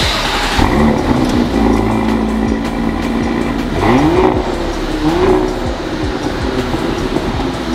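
2022 Audi SQ5's 3.0-litre turbocharged V6 running through a stainless-steel Audi Sport exhaust with perforated tips. It runs steadily, then is revved twice, about four and five seconds in, each rev a quick rise in pitch before it settles back.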